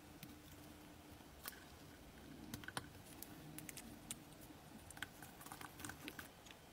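Faint, scattered small clicks and taps of tweezers and tiny metal parts of a miniature engine model handled in gloved hands, with a cluster of quick clicks near the end.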